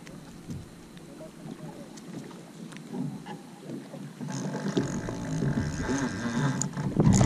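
Wind on the microphone and open-water ambience aboard a fishing boat. About four seconds in, a louder sound with a steady pitch comes in and builds toward the end.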